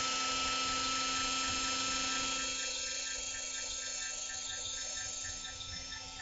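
D20 Add-A-Motor electric chicken-coop door motor running with a steady whine, winding in fishing line to raise the coop door. Later on a light ticking joins it, about three times a second, and the whine slowly gets quieter.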